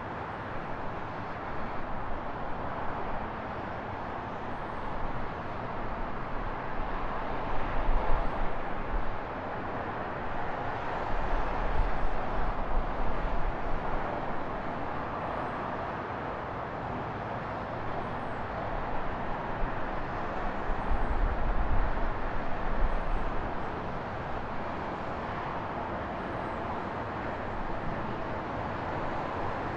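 Steady traffic and road noise, with wind buffeting the action-camera microphone in low rumbling gusts, loudest about 8, 12 and 21 seconds in.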